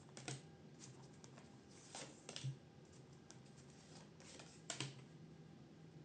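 A few faint taps and rustles of tarot cards being handled and laid down, in near silence.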